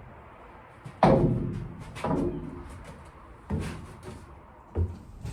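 Timber battens being handled inside a steel narrowboat hull: four knocks and thuds, the first about a second in the loudest, each dying away quickly.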